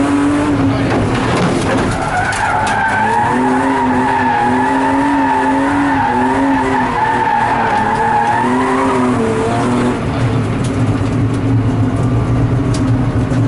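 BMW E36 engine working hard, revs rising and falling, heard from inside the cabin, with the tyres squealing through a long drift from about two seconds in until about nine seconds. After the slide the tyre squeal stops and the engine runs on alone at lower revs.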